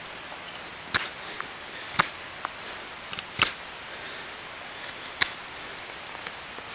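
Scandi-ground neck knife carving wood in reverse-grip cuts: about four sharp, short slicing strokes a second or two apart, with a few fainter ticks between them.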